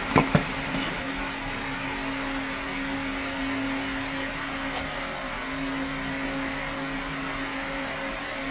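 Steady machine hum with a low even tone. A couple of sharp clicks come just after the start, as a finger flicks the small brushless DC fan motor's rotor by hand.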